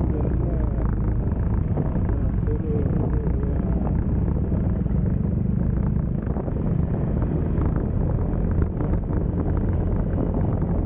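Yamaha XMAX 300 scooter riding along, its single-cylinder engine running steadily with a low drone under a constant rush of air and road noise.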